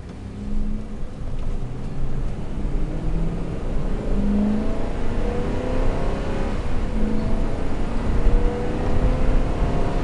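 Ford 5.4-litre Triton gas V8 heard from inside the cab as the pickup accelerates. The engine note climbs in pitch and drops back at each upshift of the automatic transmission, and the shifts come cleanly without delay.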